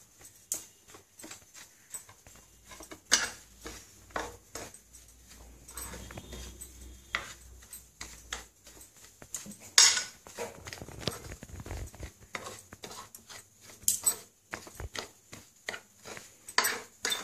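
Spoon stirring a dry flour-and-breadcrumb mix in a glass plate: irregular scrapes and clinks of the spoon against the glass, with a few sharper knocks among them.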